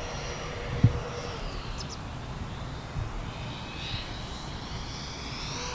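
Twin 70 mm electric ducted fans of a foam RC Boeing 737 model airliner whining in flight. The high whine grows louder and rises in pitch in the second half. A single low thump comes just under a second in.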